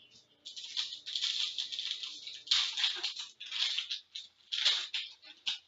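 Hockey trading cards being handled and flipped through, a run of dry papery rustling and sliding in irregular bursts.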